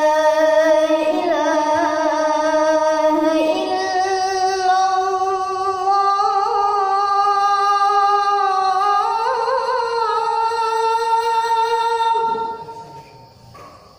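A boy muezzin chanting the adhan into a microphone, drawing out 'ashhadu an la ilaha illallah' as one long ornamented line. The pitch steps up a couple of times, and the line trails off about twelve and a half seconds in.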